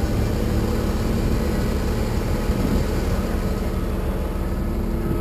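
Freightliner M2 rollback tow truck's Mercedes-Benz diesel engine running steadily while the hydraulic controls move the flatbed forward.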